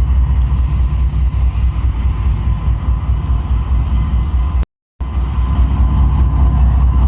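Train running with a loud, steady low rumble, a high hiss laid over it for about two seconds near the start. The sound cuts out completely for a moment a little before five seconds in, then resumes.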